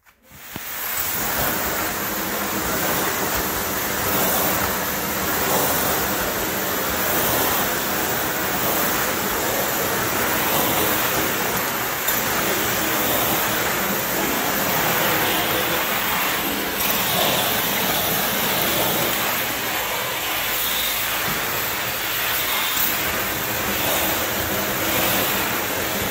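Hard-surface tile-cleaning extraction wand spraying hot water and vacuuming it back up as it is pushed over ceramic tile: a loud, steady rush of suction and spray that starts abruptly about half a second in.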